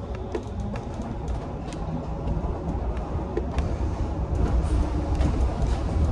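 Interior of a Linz trolleybus under way: a steady low rumble of the electric drive and tyres that grows louder about two-thirds of the way in, with scattered light clicks and rattles.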